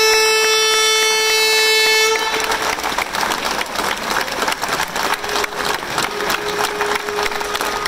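A boat's horn gives one long steady blast that cuts off about two seconds in, and a crowd breaks into applause.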